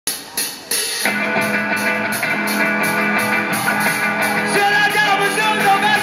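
Live rock band playing the opening of a song, heard from the crowd: after a couple of short noisy bursts, sustained chords come in about a second in and hold steady, with a melody line bending in pitch near the end.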